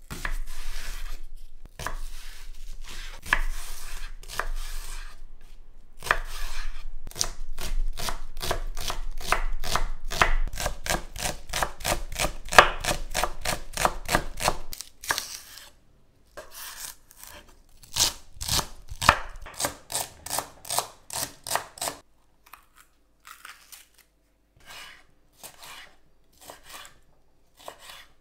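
Chef's knife chopping leeks on a wooden cutting board: runs of quick, even chops at about three or four a second, broken by short pauses. In the last few seconds the cuts come slower and quieter.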